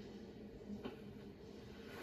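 Faint steady hum with a light click a little under a second in.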